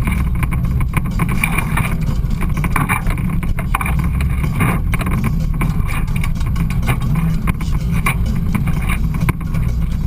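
Side-by-side off-road vehicle driving on a rough trail: a steady engine and heavy low rumble, broken by frequent short knocks and rattles from the bumps.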